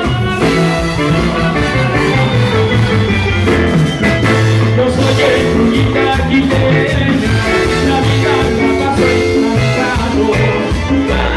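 Live Latin dance band playing up-tempo salsa-style music.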